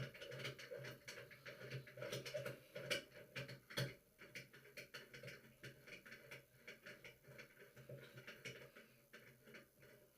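Faint, irregular clicks, taps and scrapes of hand tools and small metal faucet parts being handled and fitted, over a faint steady low hum.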